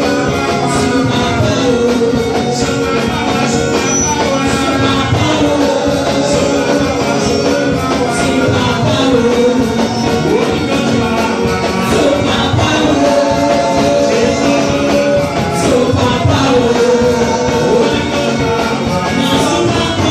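Loud music with singing, continuous throughout.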